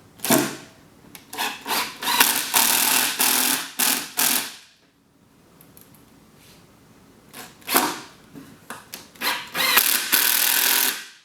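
Power drill driving two screws into a wooden shelf joint: each starts with a few short bursts, then runs for a couple of seconds as the screw drives home, with a quiet pause between the two screws.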